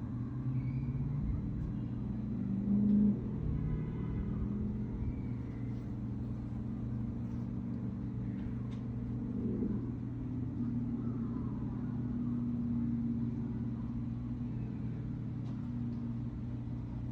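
City traffic noise: a steady low rumble of vehicle engines. One vehicle swells louder about three seconds in, and another shifts pitch near ten seconds.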